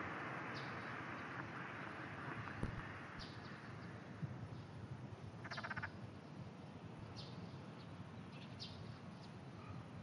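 Distant pond frogs calling: one short, rapidly pulsed, rattling croak a little past halfway, with faint short high chirps scattered through, over a soft steady hiss.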